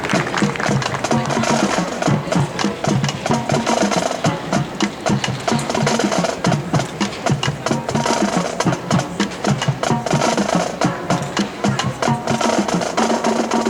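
Marching band playing, with rapid, dense drum and percussion hits and a few held wind-instrument tones.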